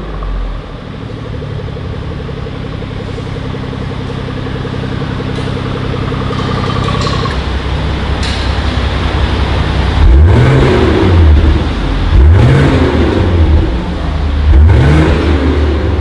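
BMW 540i's turbocharged inline-six idling through an Armytrix valved exhaust, growing gradually louder as the exhaust volume is turned up from the phone app. The engine is then revved three times in quick succession, each rev rising and falling.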